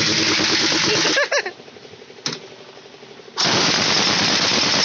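Pneumatic impact wrench rattling in two long bursts: the first stops about a second in, and the second starts about three and a half seconds in.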